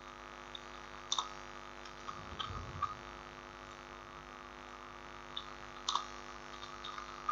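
A few computer mouse clicks, including double clicks about a second in and about six seconds in, over a steady electrical hum.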